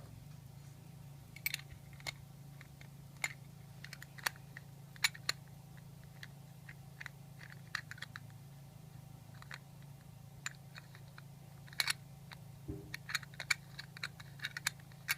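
Irregular small clicks and taps of a gold-filled pocket watch case being handled and worked open and shut, some in quick clusters, over a steady low hum.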